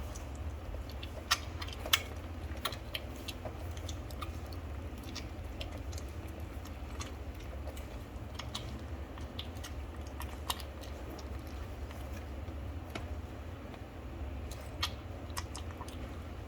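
A Maltipoo puppy's small, sharp clicks and ticks, scattered irregularly about once or twice a second, over a steady low hum. The two loudest clicks come about a second and two seconds in.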